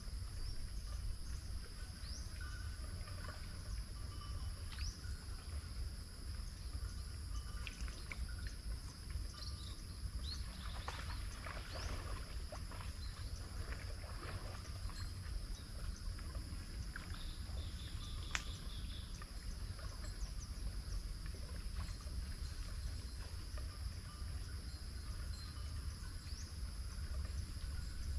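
Outdoor ambience of insects droning steadily at a high pitch over a low rumble. About halfway through comes a stretch of short rustling noises, and a single sharp tick follows a little later.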